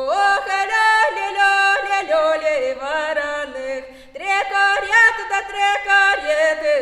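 A solo female voice sings a southern Russian village wedding folk song with no accompaniment. There is a short break about four seconds in, and then the singing resumes.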